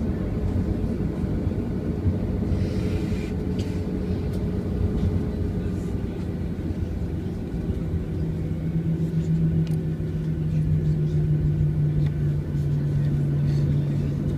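Airliner engines running: a steady low rumble with a hum that steps down slightly in pitch twice.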